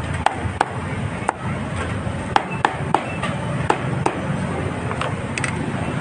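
About ten sharp, irregular chopping knocks over steady background street noise.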